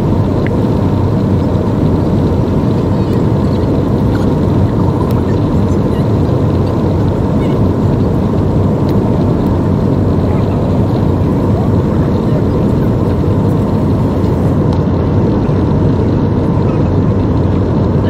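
Steady, even cabin noise of a jet airliner descending, heard from a window seat: engine and rushing-air noise with a faint steady hum running through it.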